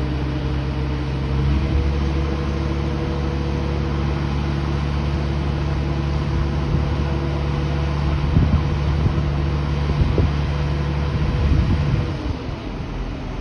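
A heavy machine's engine running steadily on a construction site, its note stepping up about a second and a half in, with a few knocks over it; the engine stops near the end, leaving wind noise.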